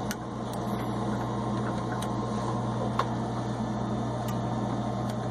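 Steady low mechanical hum, with a few faint, sharp metallic clicks as ring spreader pliers work a snap ring off a propane stove's burner knob shaft.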